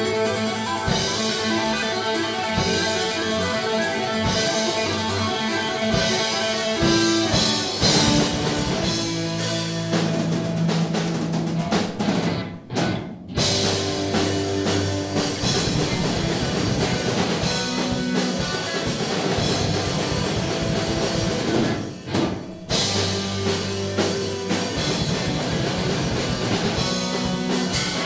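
Punk-rock band playing live: electric guitars and bass over a drum kit. The band cuts out for a split second twice, about halfway through and again about three quarters of the way in.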